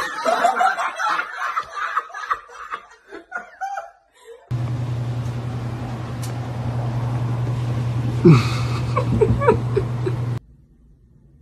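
A person laughing in short, choppy bursts. Then, after a cut, a steady low hum with a falling pitched sound and a few short high sounds over it near the end. The hum cuts off abruptly.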